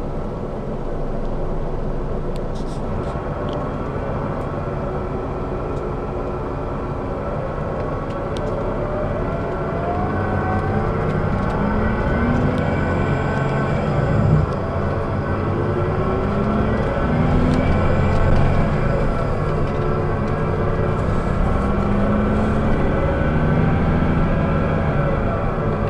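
The coach's rear-mounted turbocharged 12-litre six-cylinder Scania DSC12 diesel, heard from inside the passenger cabin, pulling under load. Its note climbs in pitch and drops back a few times, the pattern of accelerating through gear changes, and it grows louder toward the second half. There are a few light clicks from the cabin. The uploader calls this engine rather bad sounding.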